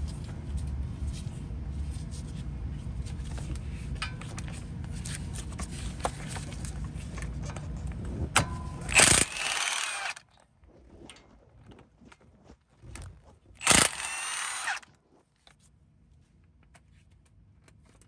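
An impact wrench run in two short bursts, about nine and fourteen seconds in, its pitch rising as it spins up, backing out the 17 mm hub-bearing bolts behind the steering knuckle. Before the bursts there is a steady low rumble with faint clicks.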